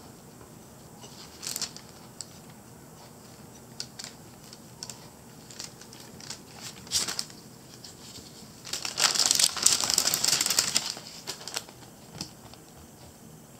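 Paper crinkling and rustling as it is handled, with scattered light crackles and taps, then a dense, louder stretch of crinkling about nine to eleven seconds in.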